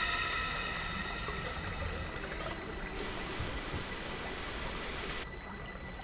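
Quiet steady background ambience: an even hiss with a few thin high steady tones, which drops a little about five seconds in.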